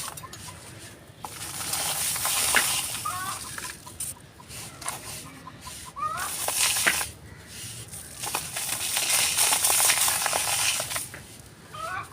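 Dried pure cement texture chunks being crumbled, a crisp crunching and crackling that comes in waves. A chicken clucks three times behind it.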